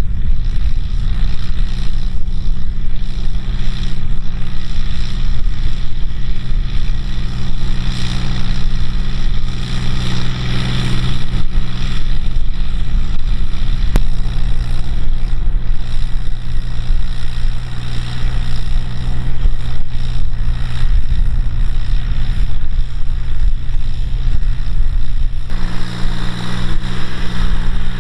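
John Deere 5055E tractor's three-cylinder diesel engine running steadily under load while pulling a rotary tiller through dry soil. The engine note shifts abruptly twice, about halfway and near the end.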